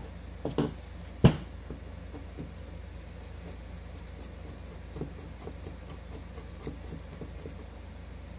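Hand screwdriver turning the screws back into a small ATV carburetor: one sharp knock about a second in, then a run of faint clicks and scrapes of metal on metal as the screws are driven in.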